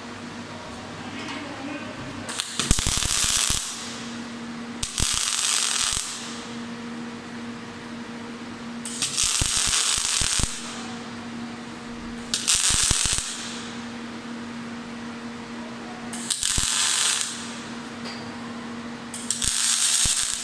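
MIG (gas metal arc) welding on a Power MIG 500 welding machine: the arc sizzles in six short runs of about a second each, with sparks of spatter thrown off. A steady electrical hum sounds between the runs.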